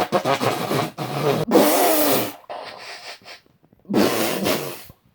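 Children making loud, silly noises with their voices and mouths, in several bursts with short breaks between them.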